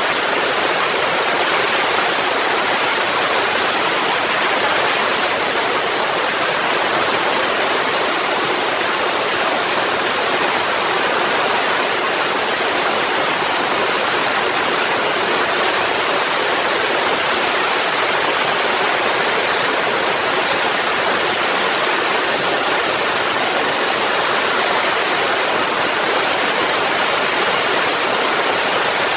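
CNC router cutting a compact high-pressure laminate (HPL) panel: a steady, even rushing noise with a thin, level high whine on top.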